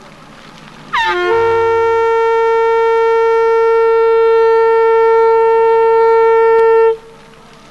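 A horn blown in one long, steady note of about six seconds, starting with a quick falling slide in pitch and cutting off suddenly.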